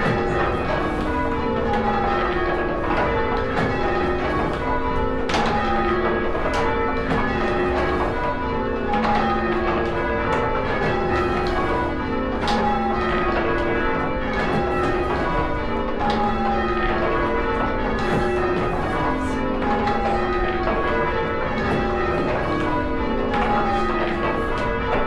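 Church tower bells being change rung: several bells strike one after another in a steady, unbroken sequence. The order of the strokes keeps shifting from row to row.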